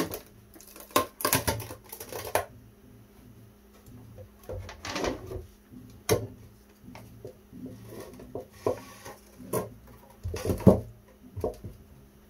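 Handling noise from a battered particleboard speaker box being taken apart and a Kicker 6.5-inch subwoofer lifted out of it: irregular knocks, scrapes and clatter of wood and the woofer's frame, the loudest knock about ten and a half seconds in.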